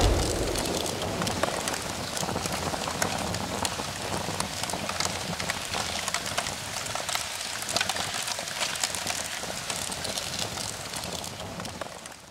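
The tail of a big explosion dies away, then fire crackles steadily with many small pops and fades out near the end.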